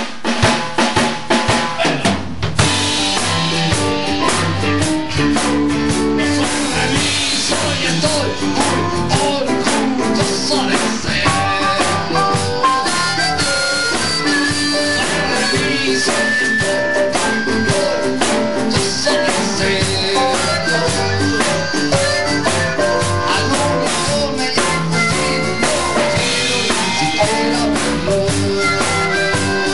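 Rock band playing live in a rehearsal room. A drum kit plays alone for about the first two and a half seconds, then the rest of the band comes in and plays on with the drums at a steady level.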